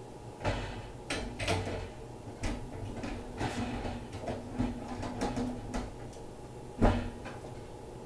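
Irregular knocks, clicks and clatter of honey frames being handled in and around a metal honey extractor, with one sharper knock about seven seconds in.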